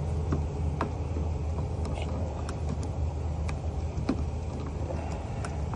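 Steady low hum of an idling vehicle engine, with scattered light clicks and ticks over it.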